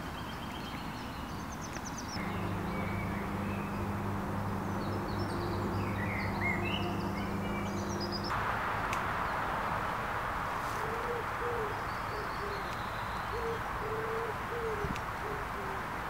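Small birds chirping over a steady low hum. Then a steady rushing noise, like a breeze in trees, with a bird's low hooting coos repeated a dozen or so times.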